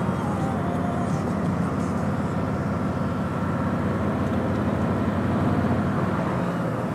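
Harley-Davidson touring motorcycle V-twin engine running steadily at road speed, with wind rush over the bikes. The engine note drops slightly near the end.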